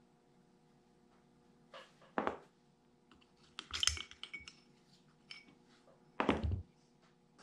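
Small steel parts of a Farmall H distributor clinking and knocking as it is taken apart: a knock about two seconds in, a run of light metallic clinks around four seconds as a screwdriver works inside the distributor housing, and another knock near the end.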